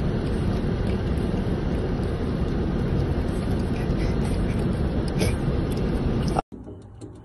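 Steady rumble of road noise inside a moving car's cabin, with a few faint clicks over it; it cuts off suddenly about six and a half seconds in.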